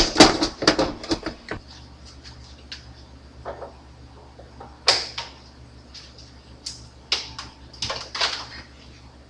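Deep fryer lid being closed with a rattling clatter of clicks and knocks, followed by scattered knocks and clicks of things being handled on a kitchen counter.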